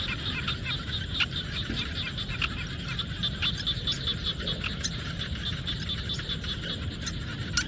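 Chorus of frogs in a rice field, many short calls repeating quickly and overlapping, over a low rumble. A thin, steady high insect whine joins about halfway through.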